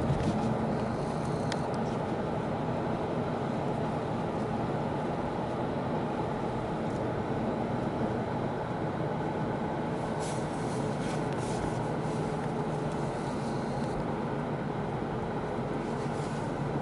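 Steady rumble of a vehicle driving over a bridge, heard from inside the cabin, with a few faint clicks about ten seconds in.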